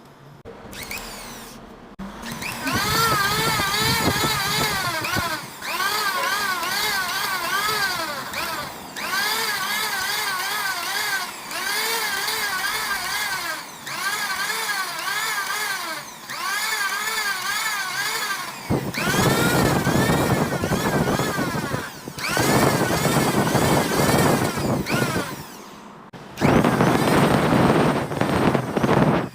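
Power sander working a CNC-machined surface in repeated passes, its whine wavering in pitch as it is pressed and eased; it lets up briefly every few seconds, and later passes are louder and rougher.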